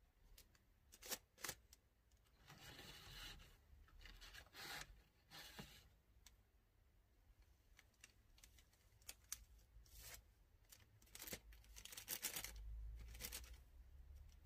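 Faint handling noises from bagging patchouli incense sticks: short, scattered crinkles of a clear plastic bag and light clicks of the sticks being counted and tapped together.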